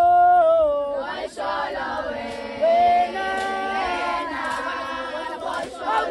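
A group of women singing a traditional Zulu ceremonial song together: one voice leads with held notes, then the group joins in about a second in.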